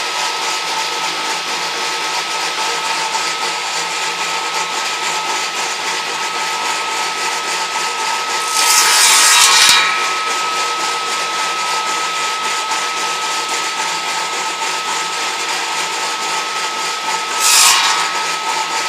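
Homemade table saw's motor running with a steady high whine, its blade cutting into wood twice: a longer cut about eight and a half seconds in and a shorter one near the end.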